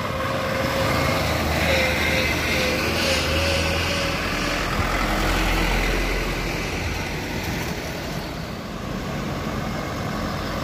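Loaded sugarcane trucks driving past at close range, their diesel engines running steadily under load. A deep engine rumble grows stronger about halfway through.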